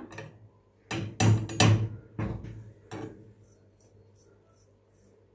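A glass bowl knocks against a small metal saucepan five times over about two seconds, starting about a second in, as cornstarch is tapped out of it. Faint light scraping follows.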